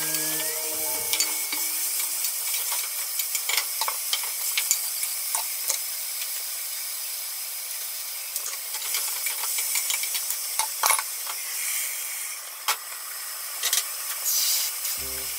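Vegetables sizzling as they are sautéed in a pot, with a wooden spatula stirring and knocking against the pot and scattered light clicks. Background music fades out in the first couple of seconds and comes back near the end.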